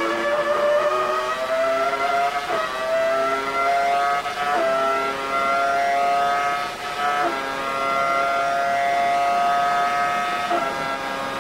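Formula 1 car's Acer-badged Ferrari V10 engine at full throttle, heard onboard: a high-pitched whine that climbs and drops sharply at each upshift, about 2.5, 4.5, 7 and 10.5 seconds in. After the third shift the pitch climbs only slowly.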